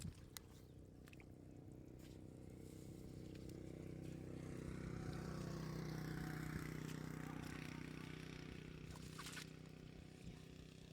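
Tractor engine running steadily, growing louder toward the middle and fading again, with a few faint clicks.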